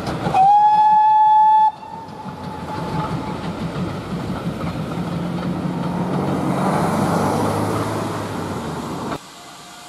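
A steam locomotive's whistle gives one steady blast of about a second and a half. It is followed by the rumble and clickety-clack of passenger coaches rolling slowly past, which grows louder before cutting off suddenly near the end.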